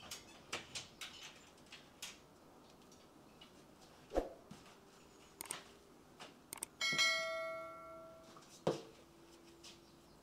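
A few clicks and knocks as a door is opened, then, about seven seconds in, quick clicks followed by a bright bell chime that rings and dies away over about a second: the sound effect of a YouTube subscribe-and-notification-bell animation.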